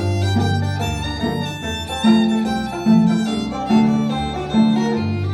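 Instrumental break of a bluegrass-style string-band cover: a bowed fiddle over held low bowed-string notes, with a run of strong accented notes about every 0.8 s in the second half.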